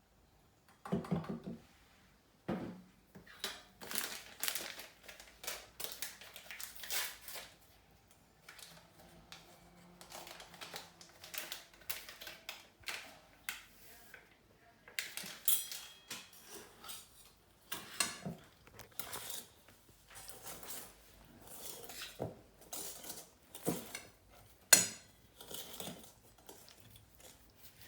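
A metal utensil clinking and scraping irregularly against a mixing bowl while cake batter ingredients are combined, with a few sharper knocks.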